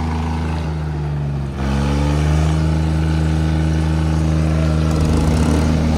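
Diesel tractor engines pulling hard against each other on a tow strap, the nearest a John Deere. Their note dips about a second and a half in, then rises and holds at higher revs under load.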